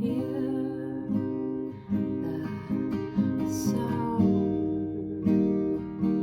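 Acoustic guitar strummed in chords, coming in suddenly at the start and re-struck about every half second to a second.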